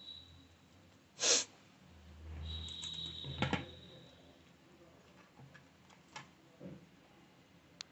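Handling noises as a hand turns a thick, round urad dal rotti over inside a steel pot: short noisy rushes about a second in and again about three and a half seconds in, with a few faint taps and clicks after.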